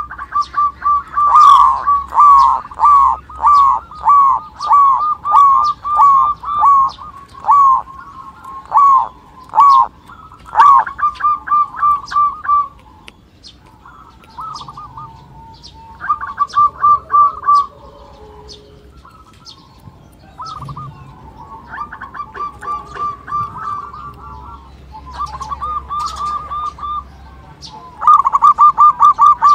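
Zebra dove (perkutut) cooing: rapid series of short, clipped notes repeated in bouts. The bouts are loud at the start and again near the end, softer and more broken in the middle.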